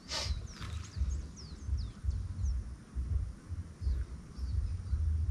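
Birds calling with short, quickly falling chirps over a steady high insect drone, with low rumbling thumps about twice a second underneath.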